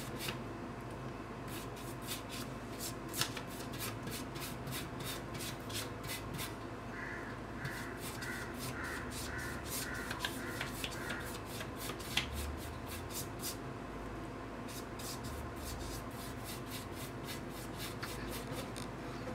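Pastry brush rubbing oil over a sheet of paper on a metal tray: quick back-and-forth brush strokes, a dry scratching and swishing repeated many times.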